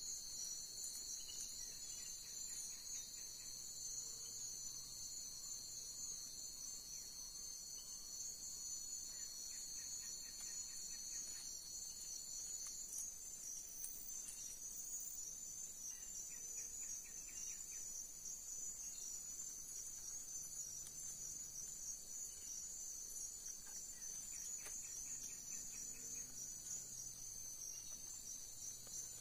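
Insect chorus: a steady, dense high-pitched trilling of crickets, with one of the pitches dropping out about halfway through. Shorter pulsed calls from other insects come in a few times.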